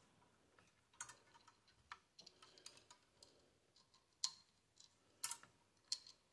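Faint, scattered clicks and ticks of a wire fan clip being worked into place against the metal fins of a Thermalright Peerless Assassin 120 SE tower cooler, about five sharp clicks over a few seconds.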